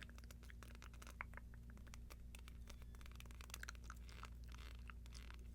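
Earrings handled close to the microphone, giving a dense run of faint, quick little clicks and ticks.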